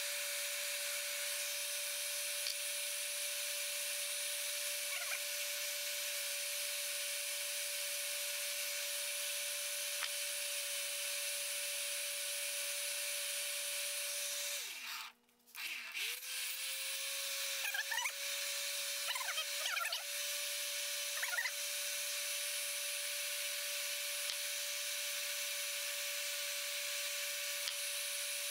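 Electric heat gun running, with a steady fan hiss and motor hum. About halfway through it is switched off: the motor winds down, falls silent for about a second, then spins back up to speed. A few light handling clicks follow.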